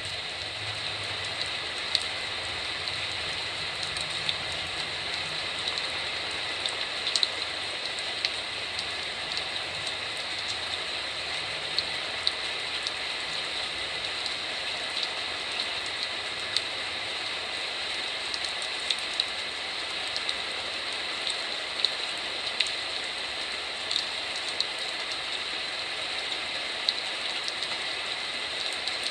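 Heavy typhoon rain, a steady hiss with frequent sharp taps of drops striking a hard surface close by.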